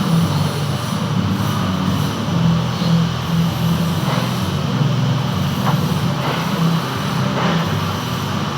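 Metal lathe running steadily with a low machine hum while turning a gland.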